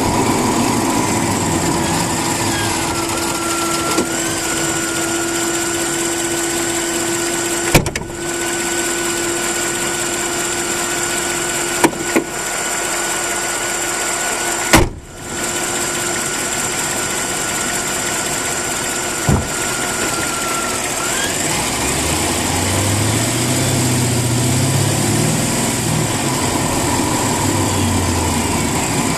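Mercedes-Benz CLK550's 5.5-litre V8 running with the weird noise its owner is chasing. A steady whine comes in a few seconds in and stops at about twenty seconds, with a few sharp clicks along the way.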